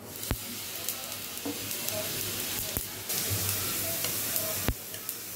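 Sesame seeds sizzling in a hot nonstick pan as a little water poured over them boils off, stirred with a spoon. There are three sharp taps of the spoon on the pan, and the sizzle grows louder about three seconds in.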